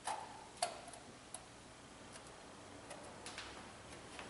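A handful of faint, light clicks and taps from hands handling small parts and tools in a car's engine bay, spaced irregularly; the sharpest come in the first second and a half.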